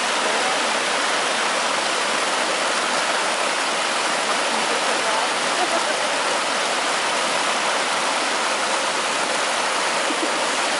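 Rushing water: a continuous, even hiss that stays steady, with no separate wave crashes standing out.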